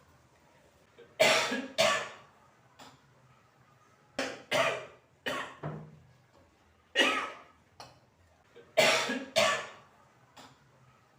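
A person coughing hard again and again, about nine forceful coughs, mostly in quick pairs, with a few smaller coughs between.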